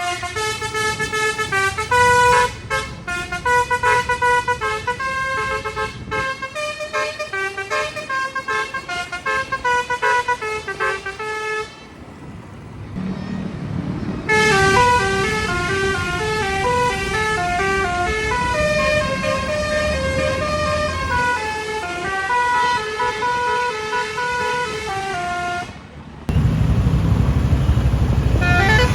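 Basuri telolet bus horn playing quick multi-note melodies in two long runs with a short break between them. Near the end a loud low rumble sets in.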